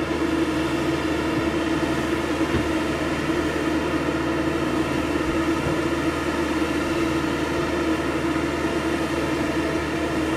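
Steady drone of a running engine or similar machine, with a constant pitched hum and no change in speed.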